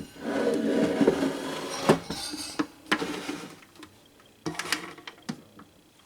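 Handling noise from a plastic table fan: rustling scrapes and knocks over the first two seconds, then a few sharp clicks and taps that thin out.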